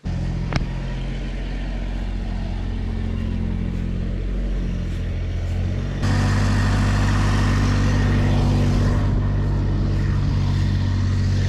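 Tractor engine running steadily, with one sharp click about half a second in. About halfway through the engine gets louder and stays there.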